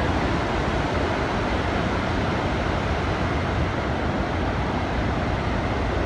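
Iguazu Falls' cascades and the rapids below them: a loud, steady rush of falling and churning water.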